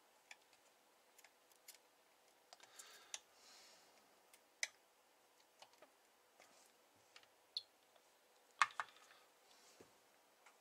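Faint, scattered clicks and ticks of a test probe tapping and scraping on solder joints and component leads of a CB amplifier's circuit board. The sharpest pair comes about eight and a half seconds in.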